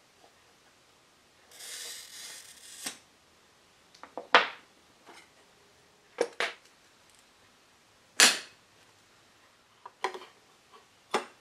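A wheeled glass cutter scoring a pane of glass along a metal square: a brief, high hiss about a second and a half in that lasts just over a second. After it come sharp glass clicks and taps as the scored piece is broken off and handled, the loudest about four and eight seconds in.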